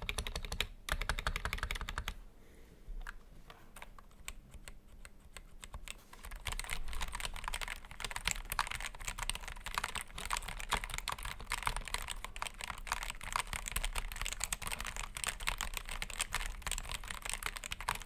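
Typing on a 60% mechanical keyboard with Gateron optical Black linear switches and lubed Cherry-style stabilizers, a dense run of key presses. About two seconds in the keystrokes thin out and turn quieter, then fast, steady typing resumes about six seconds in.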